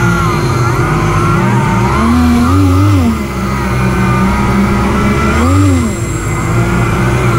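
Electric motors and Master Airscrew 11x10 propellers of a large RC hovercraft running at speed. The propeller whine rises and falls twice as the twin thrust motors are throttled up and back, over a steady hum from the lift fan.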